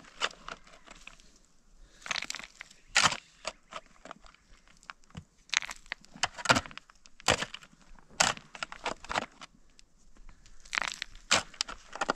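A long-handled digging tool chopping into loose, clumpy soil and breaking it up: irregular short crunching strikes, about one a second, some coming in quick clusters.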